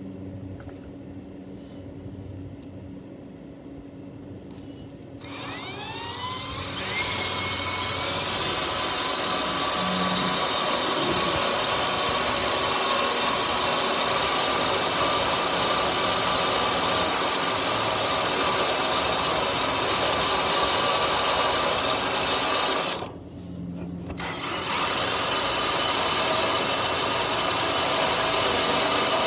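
Power drill driving a titanium-coated Warrior step drill bit through metal, a continuous grinding cut with a steady high whine. It is quieter for the first few seconds and grows loud about six seconds in as the bit bites. It stops briefly near the end, then starts cutting again.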